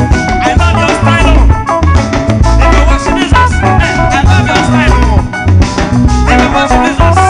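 Loud, upbeat dance music with a strong, repeating bass beat and busy melodic lines over it.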